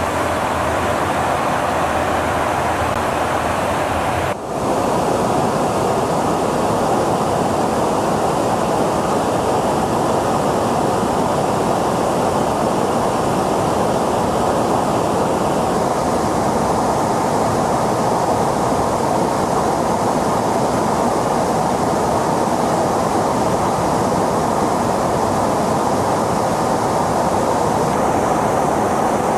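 Steady rushing noise of airflow and jet engines, heard from inside an aerial refuelling tanker in flight. A different steady noise with a low hum fills the first four seconds and changes abruptly at a cut.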